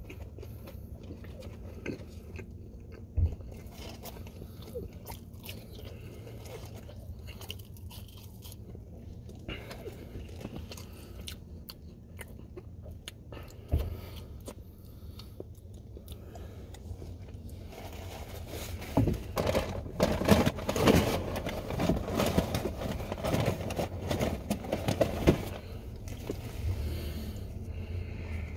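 A person chewing and biting fast food close to the microphone, with a steady low hum underneath. Two short thumps come in the first half. In the second half there are several seconds of louder, irregular crunching.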